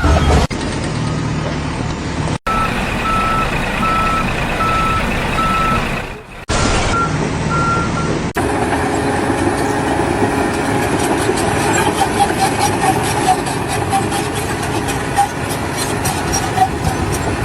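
Vehicle reversing alarm beeping at a steady, even pace over engine noise. After a cut, a different machine runs with a fast, regular clatter.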